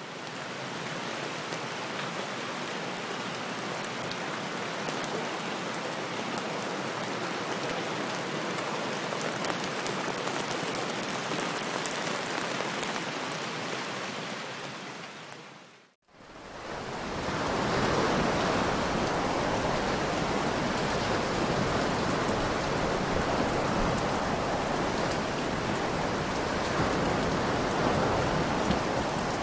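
Steady rain falling, a continuous even hiss. About halfway through it fades out briefly and a second, louder and fuller rain recording takes over.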